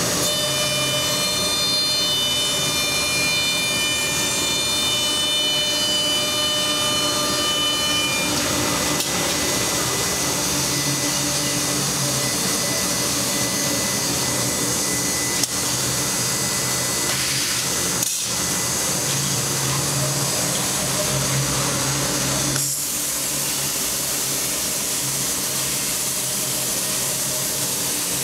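HOMAG CNC woodworking center running with steady machine noise. A set of high steady tones stops about eight seconds in, and there are a couple of brief clicks later on.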